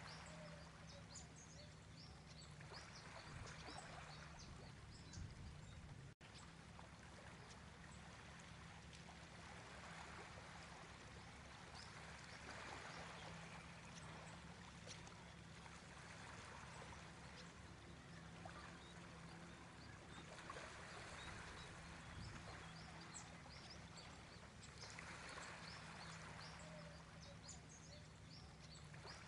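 Very faint outdoor ambience: a soft wash like running water that swells and fades every few seconds, with light, high chirps scattered through it over a low steady hum.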